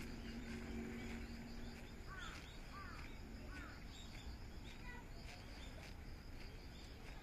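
Small birds chirping and calling repeatedly in short, quick notes over a steady low background rumble, with a faint steady hum that fades out about two seconds in.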